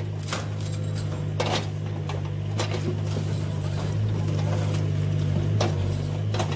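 Electric drive motor and gearbox of a Huina radio-controlled dump truck running with a steady low hum as the truck drives and turns, with scattered sharp clicks.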